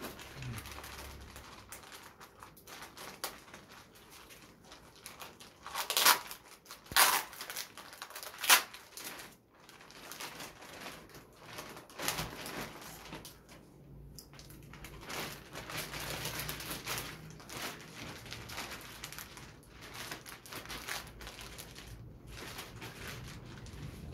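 Clear plastic wrapping crinkling and rustling as it is handled and pulled on around a speaker box, with three loud sharp crackles about six to eight and a half seconds in.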